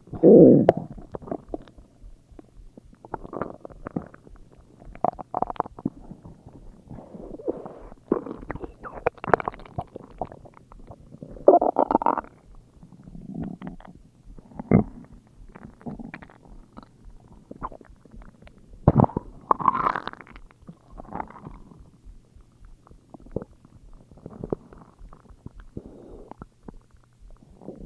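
Human stomach growling and gurgling in irregular bursts, loudest at the very start and again about twelve and nineteen seconds in.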